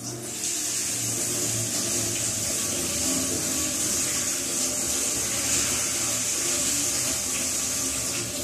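Kitchen tap running steadily onto finely chopped cabbage in a bowl as it is rinsed by hand.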